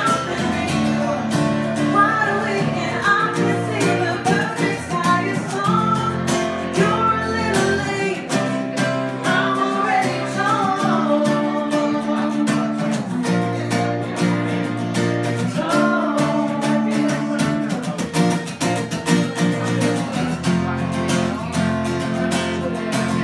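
Live acoustic guitar strumming chords while a woman sings a slow song over it.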